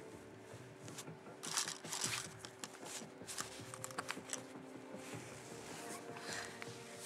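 Soft rustling and crinkling, heard twice, with a few light clicks in between, over faint steady background tones.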